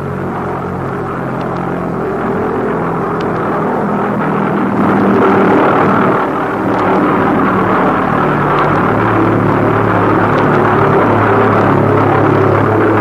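A loud, continuous low rumble with sustained low droning notes that shift pitch every few seconds.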